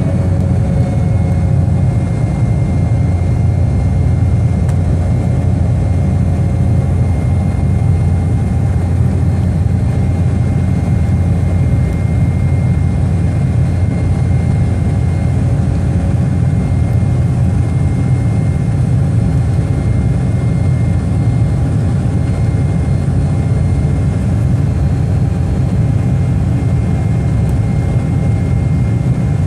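Airliner engines at climb power heard inside the passenger cabin: a loud, steady drone with a faint steady high tone over it.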